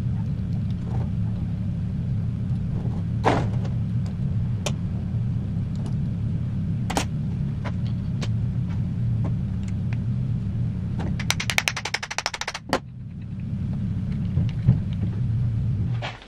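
Steady low rumble with scattered metallic clicks and clinks as machined steel parts of a lathe tap holder are picked up, set down and fitted together. About eleven seconds in there is a fast run of clicks lasting over a second.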